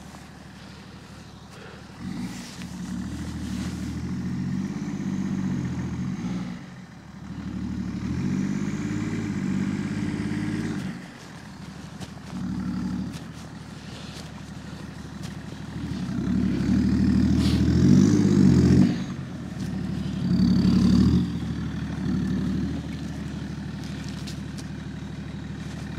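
BMW E39 530d's M57 three-litre straight-six turbodiesel revving in repeated bursts as the throttle goes on and off while the rear-wheel-drive car climbs a snowy dirt track. It grows louder as the car draws near, loudest about two thirds in.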